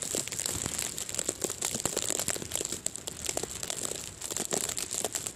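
Bag wrapped over the tablet crinkling and crackling against the microphone as strong gusts of wind buffet it, in rapid irregular crackles over a rushing haze.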